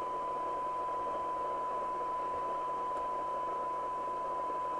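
Steady 1 kHz test tone over hiss from a Radiomobile CB202 CB radio receiving a weak modulated test signal, as heard during a SINAD sensitivity measurement of its receiver.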